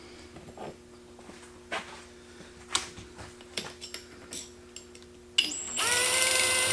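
A few small clicks and taps, then about five and a half seconds in a cordless drill starts up, its motor whine rising quickly and then holding at a steady high pitch.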